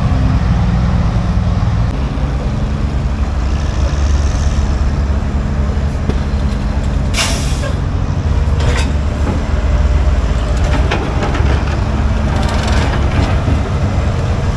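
A heavy engine running with a steady low drone. A sharp hiss comes about halfway through, a shorter hiss a second later, and fainter hissing near the end.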